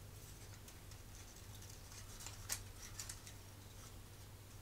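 Light clicks and taps of thin laser-cut wooden puzzle pieces being handled and slotted together, the sharpest about halfway through, over a faint steady low hum.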